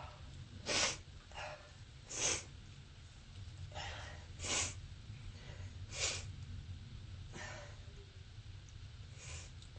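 A person with bronchitis sneezing harshly over and over: four loud sneezes about a second and a half apart, with softer bursts between them.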